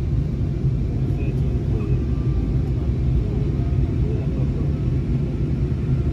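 Airbus airliner cabin noise heard from inside: a steady low rumble of engines and air that holds an even level throughout.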